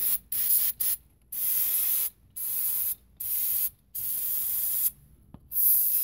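Aerosol spray can hissing in repeated bursts: three quick squirts, then a run of longer sprays lasting up to a second each.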